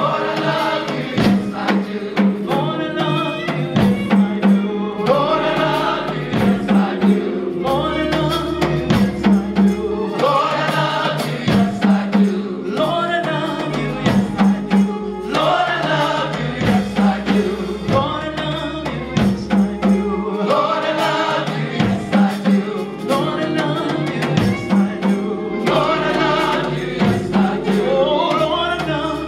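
Gospel choir singing with a live band: sustained bass notes and a steady drum beat under the voices.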